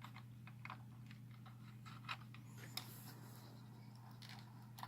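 Faint, scattered small plastic clicks and taps of a camcorder being handled while an SD card is worked into its slot, over a steady low hum.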